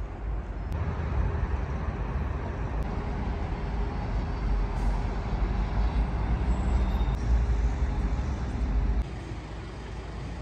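Street traffic on a busy city square: a steady low rumble of buses and cars passing, cutting off suddenly about nine seconds in.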